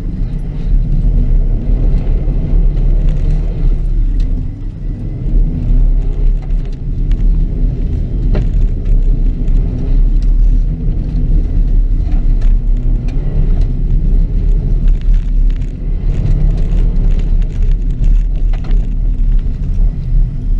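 2006 Subaru WRX's turbocharged flat-four engine running hard on a dirt rallycross course, with scattered sharp knocks over a continuous low rumble. The engine note drops off briefly about four seconds in.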